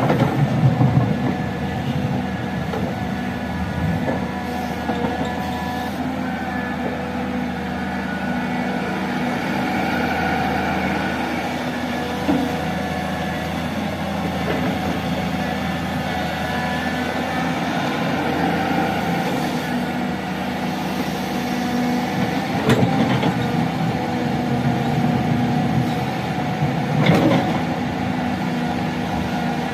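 Hydraulic excavator's diesel engine running steadily under work, with a few sharp metal clanks.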